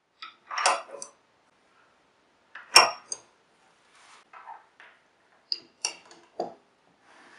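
A plastic side-release buckle and the small metal bracket it sits in being handled on a wooden paracord jig: a series of sharp plastic and metal clicks and light knocks, the loudest about three seconds in, with a little cord rustling between.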